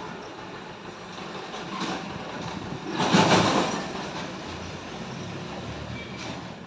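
Steady outdoor background rumble and hiss, with a louder rush about three seconds in that fades within a second.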